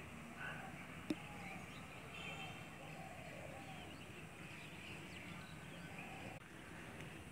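Faint outdoor ambience of scattered bird chirps and distant voices, with one sharp click about a second in.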